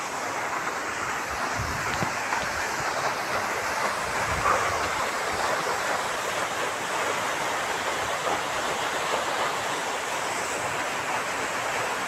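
Waterfall pouring down a rock face into a pool: a steady rushing hiss of falling water.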